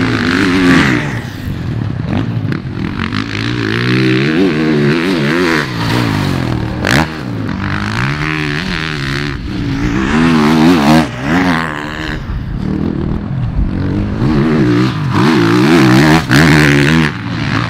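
Motocross bike engine revving hard and backing off again and again as it is ridden around a dirt track, its pitch rising and falling with each throttle opening.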